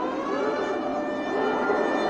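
A warning siren wails with wavering, rising tones over a steady rushing noise, in the last moments before the Saturn V S-IC first stage's engines ignite on the test stand.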